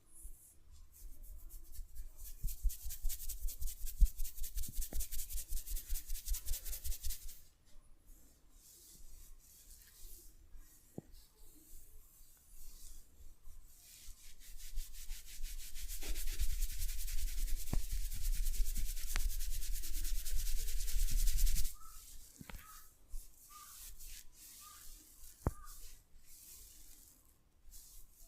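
Hands rubbing briskly and rhythmically over hair and scalp in a head massage, in two long bouts of fast, even strokes; the second bout stops abruptly. Between and after the bouts there are a few light taps and soft clicks.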